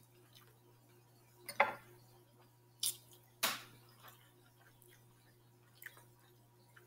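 Close-miked eating sounds: a few short clicks and smacks from a utensil in a glass bowl of rice and from eating a smothered chicken leg. The loudest come about a second and a half and three and a half seconds in.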